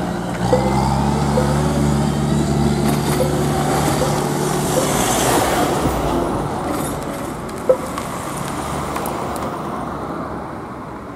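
Diesel engine of a compact wheel loader running at a steady pitch, fading out about halfway through as it moves off. A car then drives over the crossing with a swell of tyre noise, and there is a single sharp knock about two-thirds of the way in.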